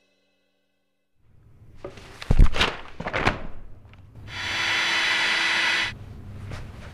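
A vinyl air mattress being handled, with rubbing and a few thuds, then an electric air pump runs steadily for about a second and a half, inflating it, and cuts off suddenly.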